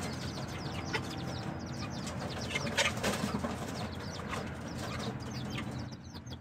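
Chickens chirping and clucking, a steady stream of short falling chirps.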